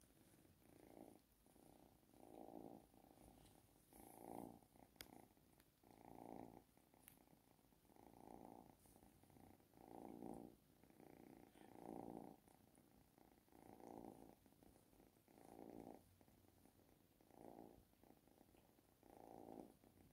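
Domestic cat purring softly, the purr swelling and fading with each breath about every two seconds.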